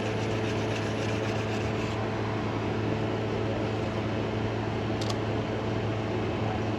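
Steady mechanical hum at an even level, with one short click about five seconds in.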